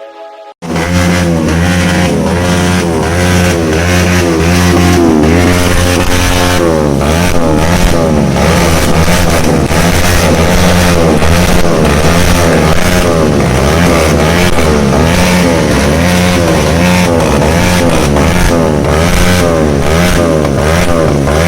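Bajaj Pulsar 220F single-cylinder motorcycle engine running loudly through an aftermarket SC Project exhaust. It starts about half a second in, and its note rises and falls over and over.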